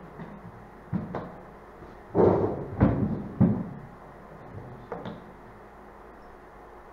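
A few separate knocks and thumps. The loudest are a group of three, about two to three and a half seconds in, with fainter single knocks about a second in and near five seconds.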